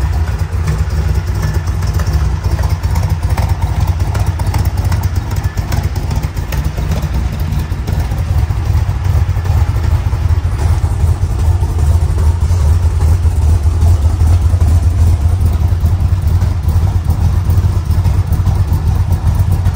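1965 Corvette's 327 cubic-inch V8 idling with a steady low rumble while still warming up from a cold start. It gets a little louder about halfway through.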